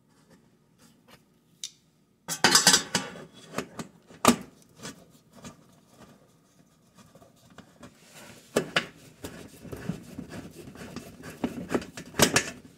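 Irregular metallic clicks, scrapes and knocks of a screw and fingers working against an oven's sheet-metal panel as the lower bake element's final screw is put in. It starts about two seconds in, and there are sharper knocks near the end.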